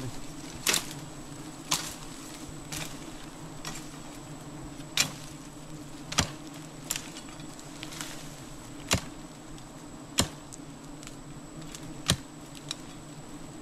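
A swarm of giant honeybees buzzing steadily, while a blade strikes the woody stem holding the comb about once a second, a dozen or so sharp chops, to bring the comb down.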